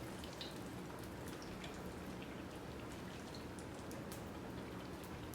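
Batter-coated Oreos frying in hot vegetable oil: a steady sizzle with scattered small crackling pops.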